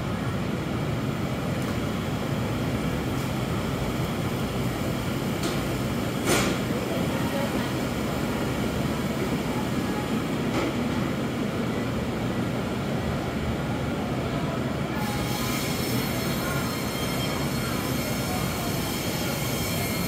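Steady mechanical hum and hiss of a supermarket interior, from refrigerated display cases and ventilation, with one knock about six seconds in. A high-pitched whine joins for the last five seconds.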